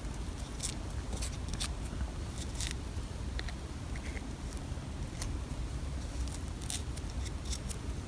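Faint handling sounds from hands turning a Dyson DC24's plastic brush bar and pulling loose hair off it: scattered light clicks and rustles over a low steady rumble.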